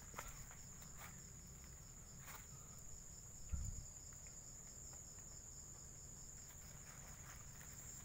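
Crickets calling in the dark: a steady high trill with a faster pulsing chirp just beneath it. A few faint rustles, and one dull low thump about three and a half seconds in.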